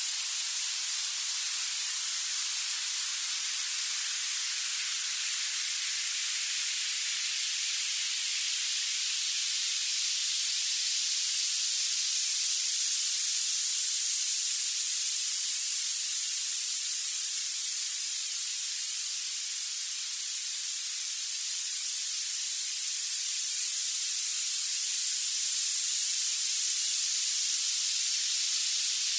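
Violet noise: a steady, bright synthetic hiss weighted heavily toward the highest pitches, with no low end at all. It swells slightly in level twice.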